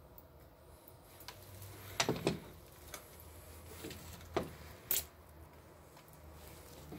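A few short knocks and clicks, two close together about two seconds in and two more around four and five seconds, over a faint low steady hum.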